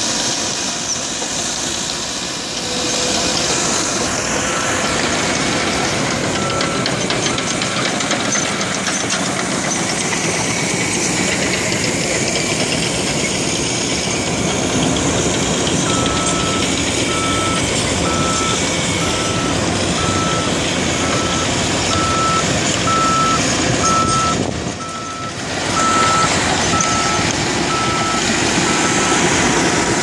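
Caterpillar D5K bulldozer's diesel engine running under load, with a back-up alarm beeping about once a second as it reverses: first a few seconds in, then again from about halfway to near the end.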